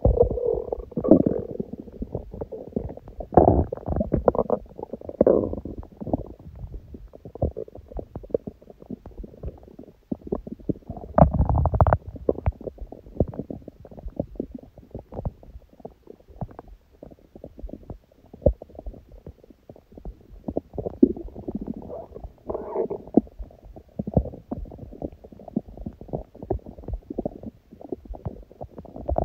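Human stomach growling from hunger: a constant run of small gurgles and bubbling pops under low rumbles. Louder bursts come about a second in, around four to five seconds in and around twenty-three seconds in, and a longer, deeper rumble comes about eleven seconds in.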